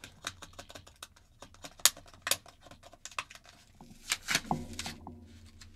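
Paper backing being peeled and torn off a plastic blister pack holding Beyblade X tops: an irregular run of small crackles and clicks from the paper and plastic, a few sharper snaps about two seconds in.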